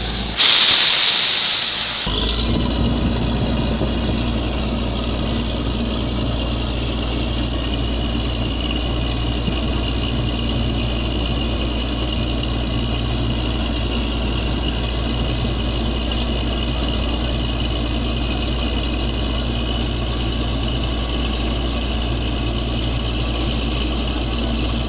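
Borewell drilling rig running with a steady mechanical drone, after a loud burst of hiss about half a second in that lasts under two seconds.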